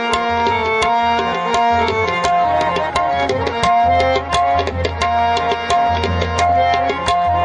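Qawwali instrumental music: harmoniums holding sustained notes over a fast pattern of hand-drum strokes.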